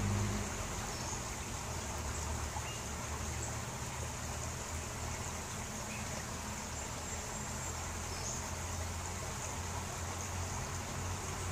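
Steady outdoor creek ambience: an even hiss of flowing water with a low rumble underneath and a few faint, brief chirps.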